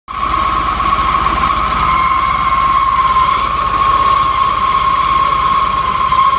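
Vehicle engine running with a loud, steady, high-pitched whine coming from the clutch, over the low even pulsing of the engine.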